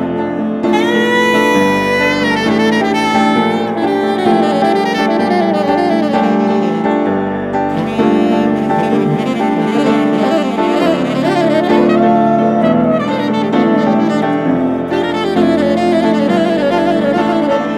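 Saxophone and piano duet: the saxophone plays a melody of held and sliding notes over piano chords, in a slow, melancholic instrumental piece.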